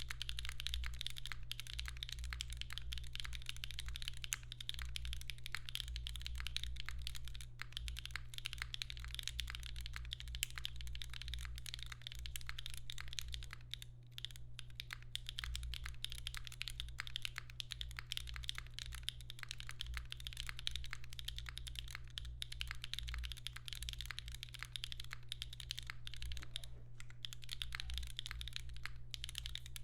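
Mechanical keyboard with an aluminum plate, stock Gateron Slay Type S switches and GMK keycaps, typed on continuously in a rapid, even patter of keystrokes. There are brief lulls about halfway through and near the end. A steady low hum sits underneath.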